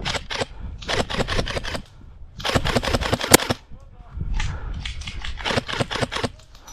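Airsoft guns firing in several short, rapid bursts, the sharp snaps coming about nine a second within each burst.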